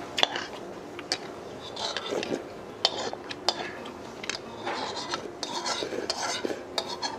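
Metal spoon clinking and scraping against a bowl while eating, a scatter of sharp single clicks.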